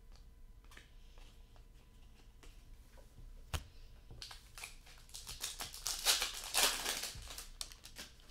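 Trading cards being handled on a table: light card clicks, one sharp tap about three and a half seconds in, then a run of quick crackling rustles, loudest near the end.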